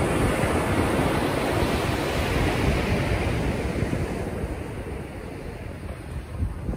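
Ocean surf washing and breaking, with wind buffeting the microphone. The wash is fullest over the first few seconds and eases past the middle.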